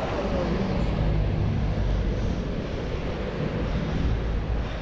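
Street traffic noise mixed with a steady low rumble of wind buffeting the microphone.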